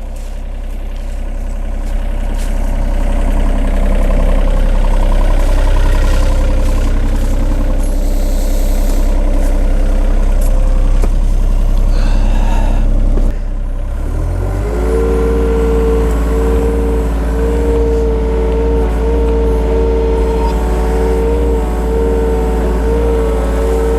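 John Deere 30G mini excavator working, its diesel engine running loud under throttle. About 13 seconds in the sound dips, then a steady whine with overtones comes in and holds over the engine.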